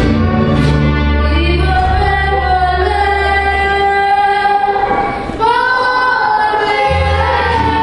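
A woman singing a ranchera live with a mariachi band of violins, trumpets and guitars, holding long notes; a new sung phrase begins about five seconds in.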